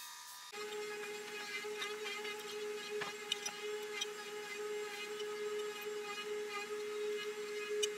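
Steady pitched humming whir, like a running motor, with a few light clicks and taps about three to four seconds in. The hum starts abruptly and fades out near the end.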